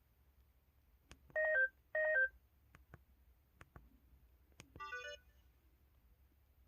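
LG-KH8000 mobile phone feedback tones: a click, then two identical short electronic beeps that each step down from a higher note to a lower one, a few faint clicks, and a brief burst of quick notes near the end.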